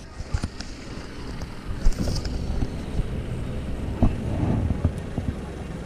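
Twin Suzuki 200 outboard motors running at slow trolling speed, a steady low rumble, with wind on the microphone and a few light knocks.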